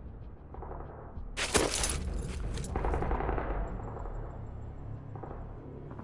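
A burst of rapid automatic gunfire, starting about a second and a half in and lasting about a second and a half, over a steady low rumble.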